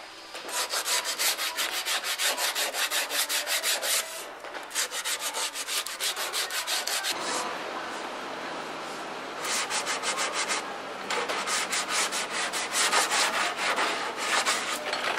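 Hand sanding of body filler on a car's wheel-well lip: sandpaper on a sanding sponge and pad rubbed back and forth in quick scraping strokes, about four a second, with a couple of short pauses.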